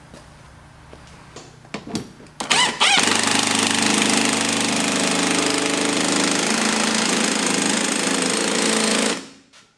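Power wrench running the coilover strut's lower mounting bolt in. After a few clicks and a short rising spin-up it runs loud and steady for about six seconds, then stops suddenly.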